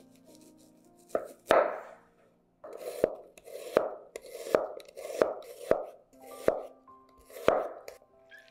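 A large kitchen knife cuts through a raw onion on a wooden cutting board. Each cut is a crunch ending in a knock on the board: one big cut about a second and a half in as the onion is halved, then about seven slicing cuts, roughly one every three-quarters of a second. Soft background music plays underneath.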